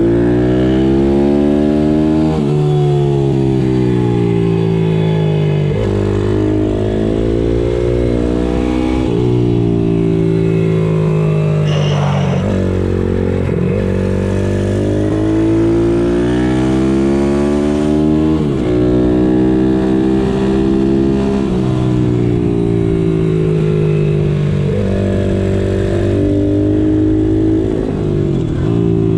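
Pitbike's single-cylinder four-stroke engine revving hard on track, its pitch rising under throttle and then dropping sharply every three to four seconds as it shifts or backs off for corners.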